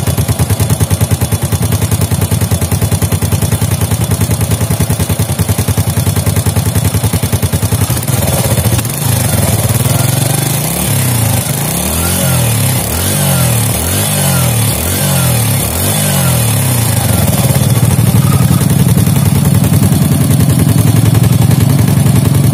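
Four-stroke motorcycle engine running at idle, blipped up and down several times from about eight seconds in, then settling back to a steady idle. With a new rocker arm fitted it no longer rattles, but a slight tick remains, which the mechanic puts down to a worn, uneven camshaft lobe.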